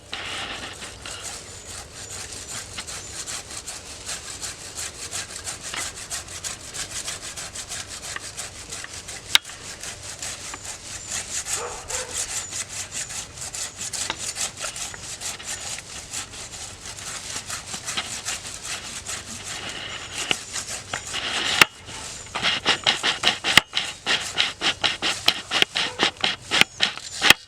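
Hand saw cutting through a freshly felled small tree trunk being cut to length for an axe handle, steady back-and-forth rasping strokes. The strokes grow louder and more distinct, about three a second, near the end.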